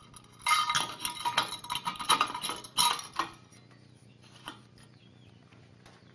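Metal clinking and rattling with short ringing tones for about three seconds, stopping about a third of the way in; one faint click later.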